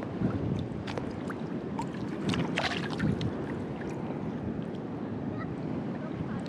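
Choppy sea water sloshing and lapping close around a waist-deep wader, with scattered small splashes and drips, busiest between about two and three seconds in.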